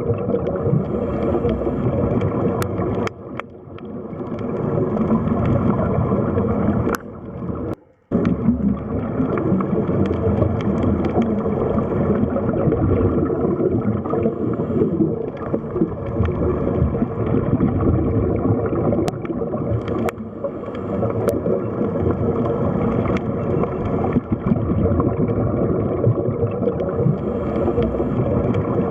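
Water sound effect: continuous gurgling, bubbling water, dipping briefly a little after 3 s and cutting out for a moment around 8 s before carrying on.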